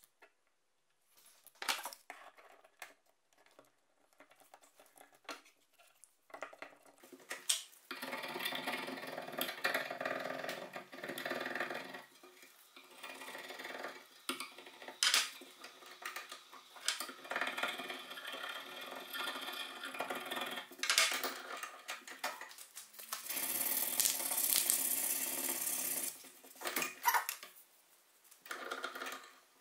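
Hand file scraping over the machete's handle in long runs of strokes, with a slight ringing edge, after a few seconds of light taps and knocks of tools on the bench.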